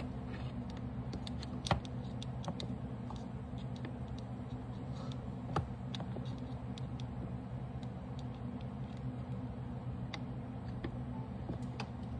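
Scattered small clicks and taps over a steady low hum, with two sharper clicks at about two and five and a half seconds in.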